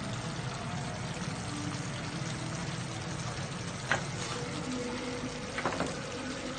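Steady hiss of a clay tagine cooking over a gas flame, with a couple of light clicks about four and six seconds in.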